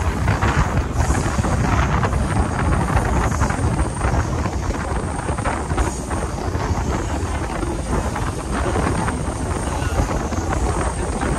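Running noise of a moving Mumbai suburban electric local train, a dense low rumble with wind buffeting the microphone.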